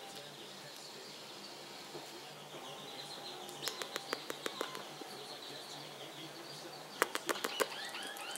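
Pacific parrotlets chattering in high, thin chirps and tweets, broken twice by quick runs of sharp clicks, once about midway and once near the end.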